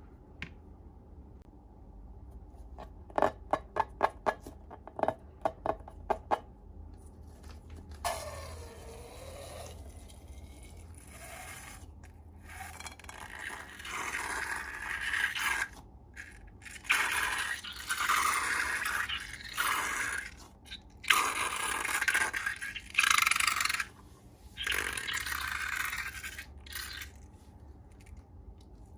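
Slime being scraped and stirred, in irregular bursts of scraping that get louder in the second half. A quick run of short squeaks comes a few seconds in.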